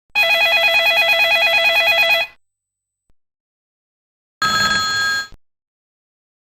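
Motorola V741 mobile phone ringtones: a ring of about two seconds that trills rapidly between two pitches, then after a pause a short electronic tone lasting about a second.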